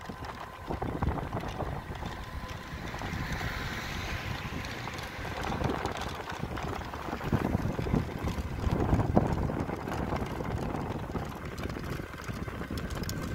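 Wind buffeting the microphone and road rumble from a moving vehicle, with louder gusts here and there.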